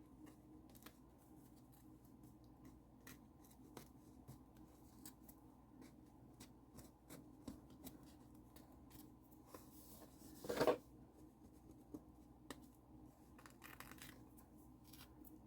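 Glued paper being peeled and scraped off a journal's cover by hand: faint, scattered scratchy rustles and ticks, with one louder short rasp about ten and a half seconds in.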